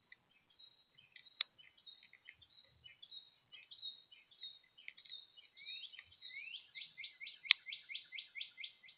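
Wild songbirds chirping at a feeder: scattered short chirps build into a fast series of rising notes, about four a second, over the last few seconds. Two sharp clicks stand out, one about a second and a half in and a louder one near the end.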